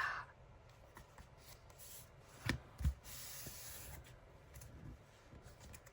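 Faint handling of paper and card on a desk: small rustles and ticks, two soft knocks about two and a half seconds in, then about a second of paper rubbing or sliding.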